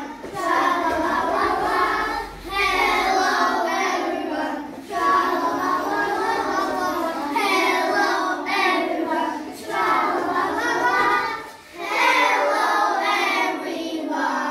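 A group of young children singing together in unison, in phrases of a few seconds with short breaks between them.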